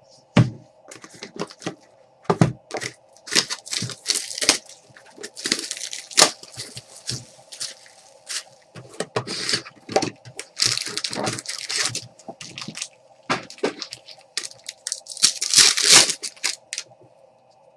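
Clear plastic shrink-wrap being torn and crumpled off a sealed Panini Prizm basketball trading-card box, in irregular crackling rips, with a few knocks as the cardboard box is handled.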